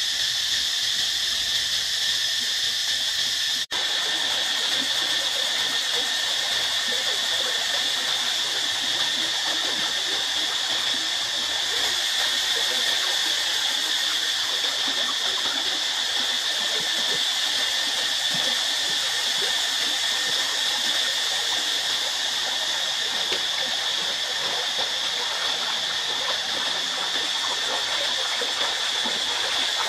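River water rushing and rippling past close by, over a steady high buzz of insects. The sound cuts out for an instant about four seconds in, and the water grows louder after it.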